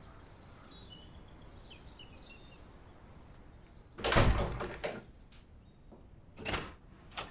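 Birds chirping faintly outside at first, then a front door closing with a loud thud and a latch click about four seconds in. A softer thud and a click follow near the end.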